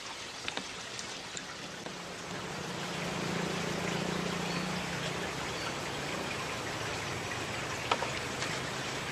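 Steady outdoor hiss with no clear single source, a faint low hum coming in about two seconds in and fading a few seconds later, and a few light clicks, the sharpest near the end.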